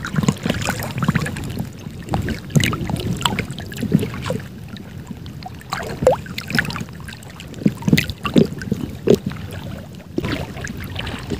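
Sea water sloshing and splashing around people wading chest-deep, with irregular small splashes and knocks.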